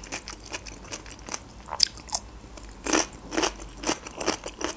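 A fresh cucumber slice being bitten and chewed close to the microphone: irregular crisp crunches, the loudest about three seconds in.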